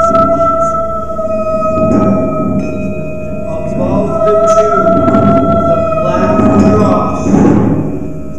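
Percussion ensemble playing: a held high tone sounds steadily while low drum rumbles swell up and die back about three times beneath it.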